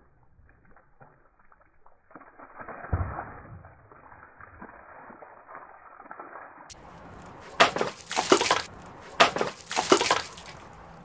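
Water gushing and splashing out of a plastic jug that a machete has just slashed open, spilling over a wooden pallet onto brick paving. Near the end, two loud bursts of knocks and clatter come about a second and a half apart.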